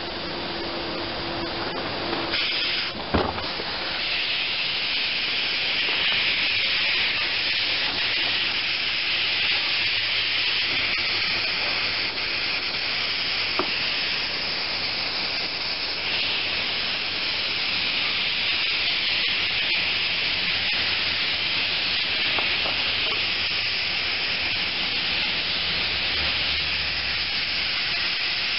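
Aerosol can of spray adhesive hissing in a long, steady spray onto seat foam. It builds a few seconds in, just after a single short knock.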